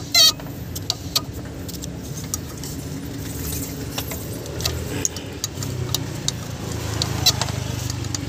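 Engine fan on a worn water pump being rocked by hand, giving loose metallic clicks and knocks: the pump shaft bearing has play and the pump wobbles. A bird gives a short, loud chirping call just after the start, over a steady low hum.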